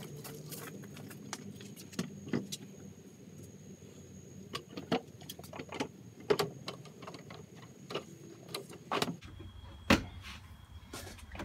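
RDI four-piece vinyl post wrap being fitted around a post and snapped together: irregular plastic clicks, taps and knocks, the sharpest about ten seconds in.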